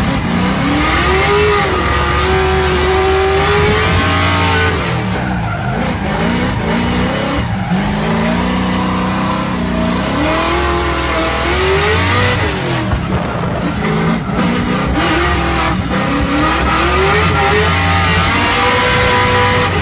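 Car engines revving up and down again and again, with tyre squeal.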